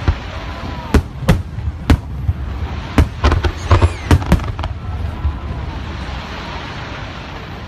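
Aerial fireworks going off: a quick run of sharp bangs over the first four and a half seconds, with a faint falling whistle near the middle, then thinning to a steady noisy haze.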